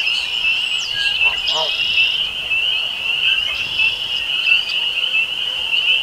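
Dense chorus of spring peepers: a steady, high-pitched wall of peeping. Red-winged blackbirds call over it, and a short lower call sounds about a second and a half in.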